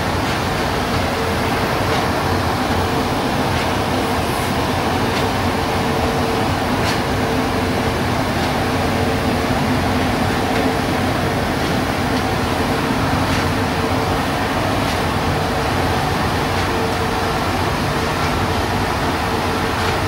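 Automatic gantry car wash machine running, a steady loud mechanical whir with a constant hum.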